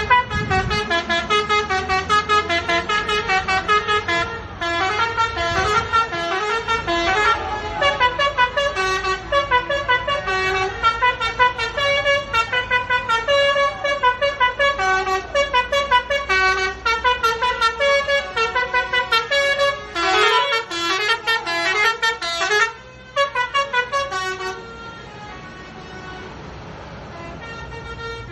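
A bus's multi-tone musical horn playing a quick tune of changing notes, over and over. The horn stops about four seconds before the end, leaving a quieter steady noise.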